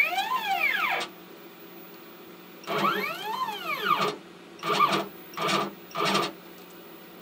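CNC router's stepper motors jogging the axes: two moves of about a second each, the whine rising in pitch as the axis speeds up and falling as it slows, then three short stepping bursts as the bit is jogged down toward the touch plate for setting Z height.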